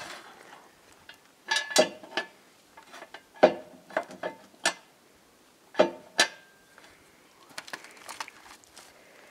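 Scattered metallic clicks and knocks from hand work at the rear wheel and brake of a jacked-up SUV, a few leaving a short ringing note.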